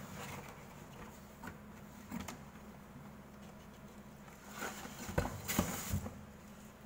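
Small handling noises: light taps, scrapes and rustles as a hand moves a small model building frame on a cutting mat, with a brief cluster of sharper clicks about five seconds in, over a faint steady hum.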